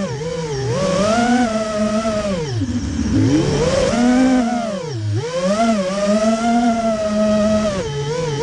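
Radio-controlled model airplane's motor and propeller, heard from on board, its pitch rising and falling repeatedly and dropping low twice, about three and five seconds in.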